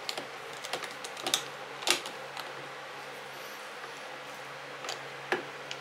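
Irregular sharp clicks and taps of a hand driver turning in and seating against the carburetor mounting screws of a chainsaw. A cluster of clicks in the first two and a half seconds, a quiet stretch, then a few more near the end, over a faint steady hum.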